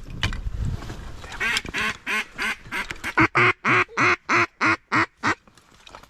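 A duck call blown in a mallard-hen quacking sequence: about a dozen short quacks that quicken and grow louder, each dropping in pitch, then stop abruptly. It is the calling used to draw passing ducks into the decoys.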